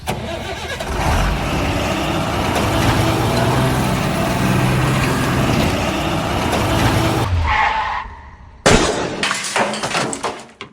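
A motor vehicle engine running with a rough, steady noise that cuts off about seven seconds in. A short tone follows, then a sudden loud noisy burst with clicks that fades away.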